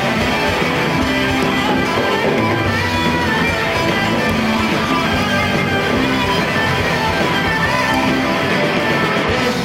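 Live band playing an instrumental passage between vocal lines, with strummed guitars to the fore, loud and steady.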